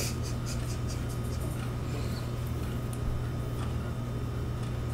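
Steady low machine hum with an even hiss, and faint rapid ticking in the first second or so.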